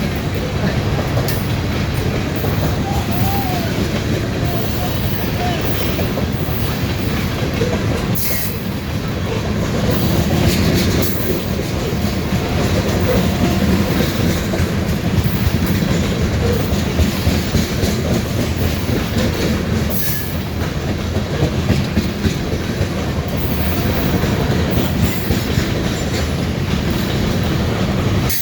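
Freight train of grain cars rolling past, a loud steady rumble with wheels clicking over the rail joints and a few faint, brief wheel squeals.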